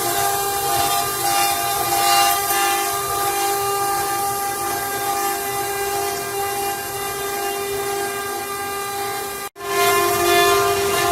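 CNC wood router's spindle running with a steady high whine of several held tones, over a rushing noise, broken off for an instant about nine and a half seconds in.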